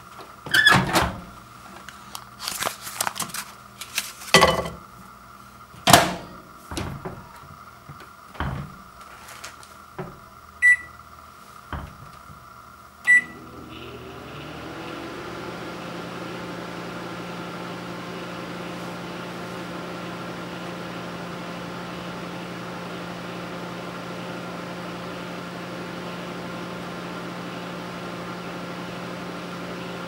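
Microwave oven being loaded and started: knocks and clunks as the door is opened, the popcorn bag put in and the door shut, then two short keypad beeps. About 14 s in the oven starts up and runs with a steady hum while it heats a bag of microwave popcorn, before any kernels have begun to pop.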